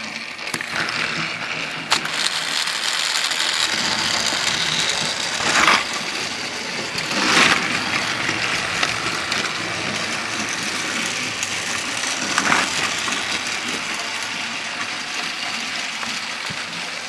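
Battery-powered Trackmaster toy trains running on plastic track: a steady whirring rattle of small motors and gears and wheels over the track, with a few louder clacks along the way.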